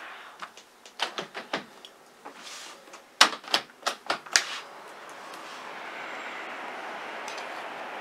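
A window being opened: a run of sharp clicks and knocks from the handle, latch and sash, loudest about three to four seconds in, followed by a steady outdoor hum coming through the open window.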